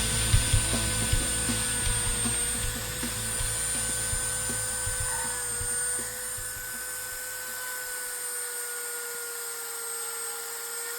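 Small handheld rotary tool running with a steady whine that dips slightly in pitch now and then, working plastic with scraping and ticking for the first half. About six seconds in, the scraping stops and the tool runs on more quietly.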